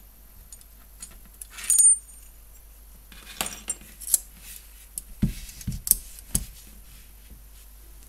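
Metal handcuffs and a handcuff key being handled: a bright metallic clink with a short ring about two seconds in, then a scatter of lighter clicks and taps.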